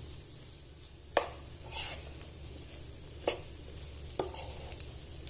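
A metal spoon stirring and mixing minced meat and mashed potato in a non-stick frying pan. It knocks sharply against the pan three times, with softer scraping in between.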